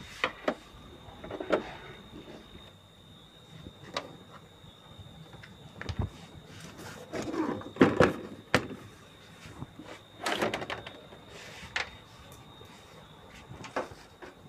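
Plastic rear cabinet of a CRT television being worked loose and lifted off, with scattered knocks, clicks and short scrapes of plastic on plastic and on the workbench. The loudest knocks come in a cluster about eight seconds in.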